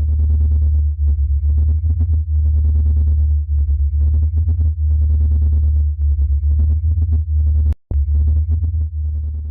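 A loud, steady, deep electronic drone with a rapid fluttering pulse: a radio-emission recording played as sound, labelled as coming from Saturn's moon Dione. It cuts out for an instant with a click about eight seconds in.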